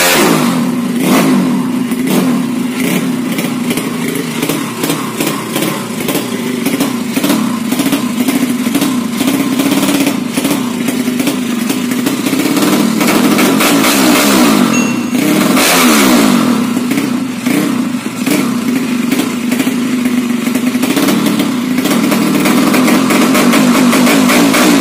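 Honda C70 motorcycle with a horizontal-cylinder 'sleep' engine idling steadily. It is blipped briefly right at the start and revved again around fifteen seconds in, its pitch dropping and climbing back.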